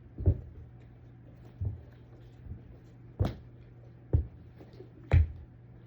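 Five dull thumps and knocks, scattered about a second apart.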